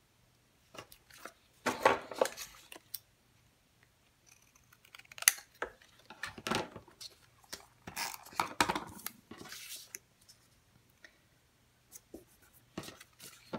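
Scissors cutting white cardstock, with paper rustling and sliding as the card pieces are handled on the mat. The sound comes in short clusters separated by quiet pauses.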